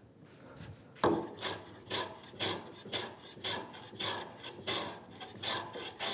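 Metal bench plane taking short, quick cuts across the end grain of a wooden board, about two scraping strokes a second starting about a second in. Each stroke stops partway so the far corner of the end grain doesn't split off.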